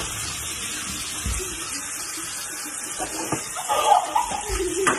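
A steady rushing, water-like hiss, with a girl's voice crying out near the end.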